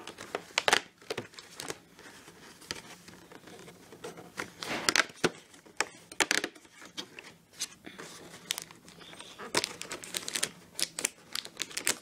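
Cardboard door of a chocolate advent calendar being pushed in and torn open by hand, with irregular crinkling and tearing of the card and packaging. The crackles come in clusters, loudest just after the start, about five seconds in, and again near the end.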